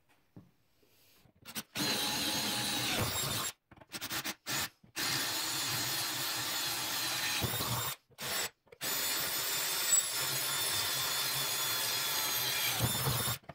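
Electric drill running steadily as it bores holes through a 1/8-inch steel plate, in three long stretches with short bursts between, each cutting off suddenly.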